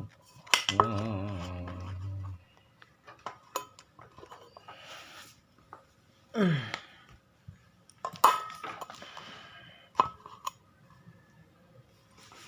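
Small hard objects clicking, knocking and clinking as parts of a mini CCTV camera kit and its packaging are handled, in scattered separate clicks. A wavering voice-like sound is heard briefly near the start, and a short falling one about halfway through.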